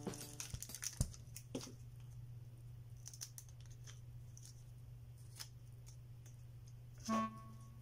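Faint scattered clicks and light rustling of small plastic figure parts and packaging being handled, over a low steady hum.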